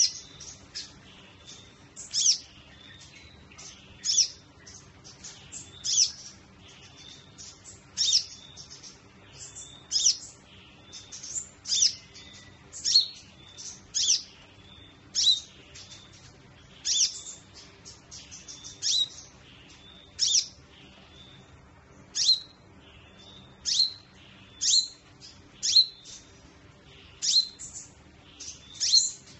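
Caged sunbird giving short, sharp, high-pitched calls, one every second or two, each a quick downward sweep.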